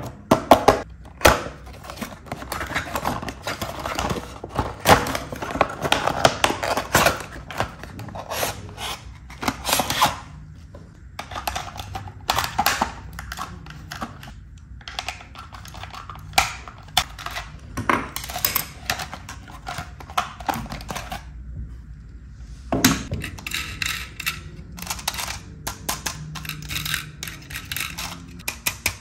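A toy fuel truck's cardboard-and-plastic window box being opened and its insert pulled apart by hand: irregular clicks, knocks and rustling of packaging.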